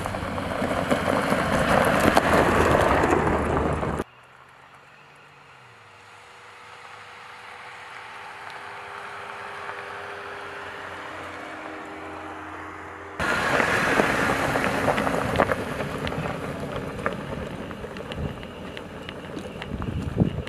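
2020 Jeep Gladiator driving on dirt and gravel trails: loud tyre and gravel noise with scattered clicks of stones. After a sudden cut about four seconds in, it is quieter, with the steady hum of the Jeep's V6 engine dropping once in pitch, before the loud tyre-on-gravel noise returns suddenly about two-thirds of the way through.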